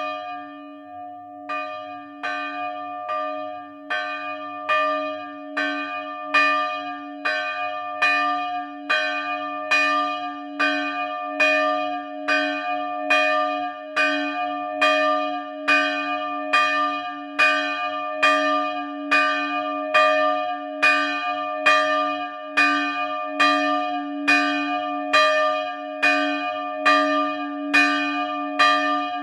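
Large bronze church bell, a 160 kg bell tuned to D-sharp/E-flat and cast in 1983 by the Dytrych family, swinging and striking about once a second. Each strike rings on into the next, and the strikes grow louder over the first few seconds as the swing builds.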